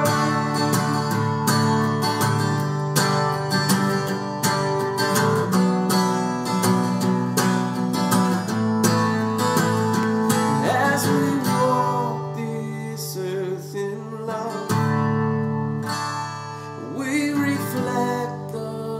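Steel-string acoustic guitar strummed in a steady rhythm, with a man singing over it at times; the strumming gets lighter and quieter about two-thirds of the way through.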